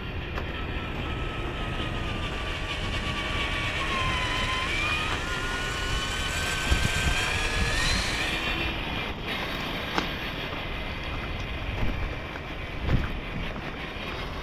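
Traxxas TRX-4 RC crawler's electric motor and gears whining. The pitch dips about four seconds in, then climbs until about eight seconds in and fades out. A couple of sharp knocks follow near the end.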